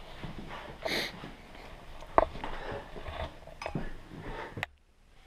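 Indoor movement noises from people shifting about on the floor and handling the camera: soft rustling, a short breathy hiss about a second in, and a few sharp clicks, dropping almost to nothing just before the end.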